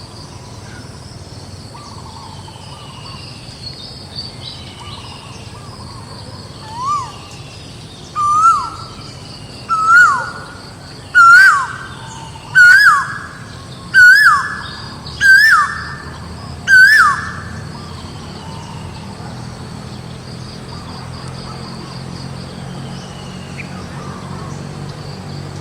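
A bird calling a series of about eight sharp notes, one every second and a half, each higher and louder than the last before levelling off. A steady high insect drone runs underneath.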